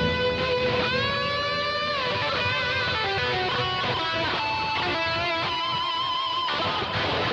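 ESP LTD H-401QM electric guitar with DiMarzio Titan pickups playing a lead line through a Boss ME-80 and delay. About a second in, a note bends up and is held, followed by a string of single sustained notes with vibrato.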